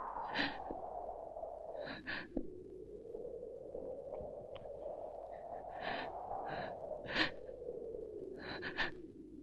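Mourners sobbing, with short gasping catches of breath in small clusters, over a low, slowly wavering drone.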